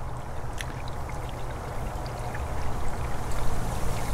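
Pentair CVA-24 pool valve actuator's gear motor churning, slowly turning the diverter valve, over a steady low hum and rushing water in the pool plumbing that grow louder toward the end. The actuator will drive the valve one way only, which the owner puts down to a failed microswitch.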